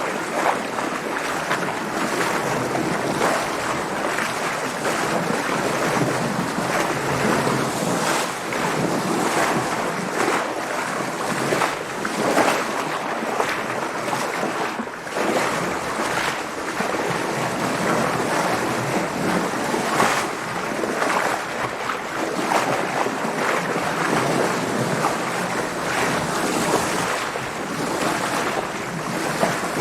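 Waves splashing against a sailing boat's hull, with wind: a continuous rushing of water broken by irregular louder splashes every second or two.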